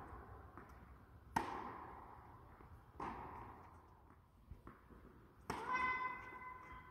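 Tennis balls struck by racket strings in an echoing indoor hall: three solid hits, the loudest about a second and a half in, with fainter ball bounces between them. Near the end a high, steady squeal lasts about a second.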